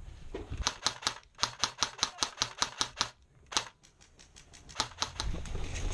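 Airsoft guns firing in quick succession: a string of about fifteen sharp snapping shots at roughly five a second, then a few single shots near the end.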